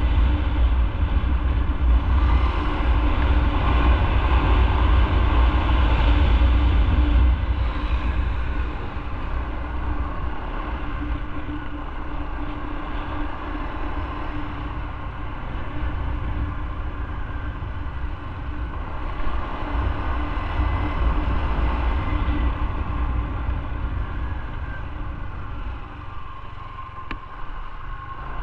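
Motorcycle engine running while riding, heard from the bike itself as a steady low rumble with road noise. It gets noticeably quieter about seven seconds in and stays lower after that.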